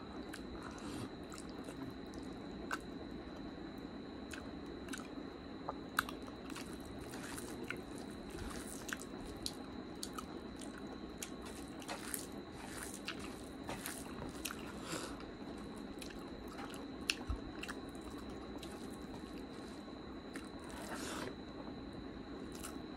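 Close-miked sounds of a person eating rice and curry by hand: wet chewing and mouth smacks, with many short scattered clicks and soft squelches as fingers mix the rice. A faint steady high-pitched whine runs underneath.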